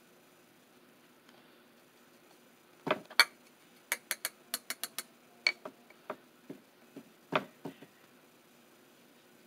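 A makeup brush knocking and clinking against a hard powder container: a run of sharp, irregular clinks, some with a short ring, starting about three seconds in and stopping near the end.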